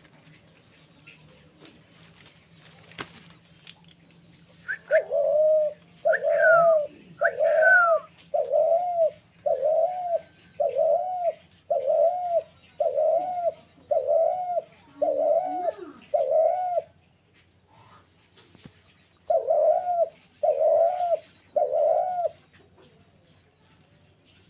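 Spotted dove cooing: a run of about a dozen evenly spaced coos, roughly one a second, then a short pause and three more.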